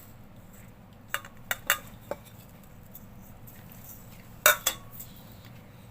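A spoon clicking against a bowl and spice containers as spices are spooned into a flour mix. There are a few light clicks about a second in, then a louder clink followed right after by a second one near the end.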